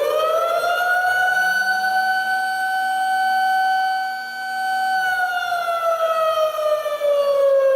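Tornado warning siren sounding a loud, steady wail that finishes winding up in the first second, holds one pitch, then starts winding down about five seconds in, its pitch sliding slowly lower.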